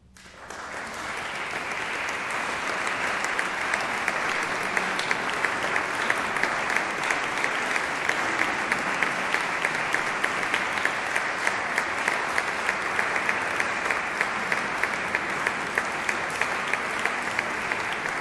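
Audience applauding: the clapping breaks out all at once and builds within a second or two, then holds steady, with one nearby clapper's sharp claps standing out about two to three times a second.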